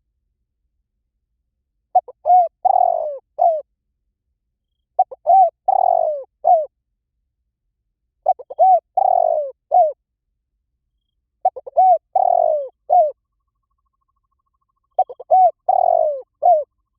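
Spotted dove cooing: five repeated phrases, one about every three seconds, each a couple of short coos, a longer falling coo and a short final note.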